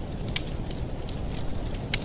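Campfire burning and crackling: scattered sharp pops of the wood, the two loudest about a third of a second in and near the end, over a steady low rumble.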